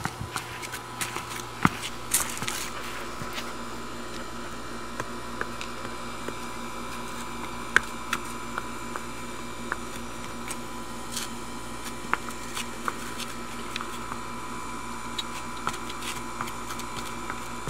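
Horse's hooves clicking now and then on a concrete porch as it steps, irregular sharp taps over a steady background hum.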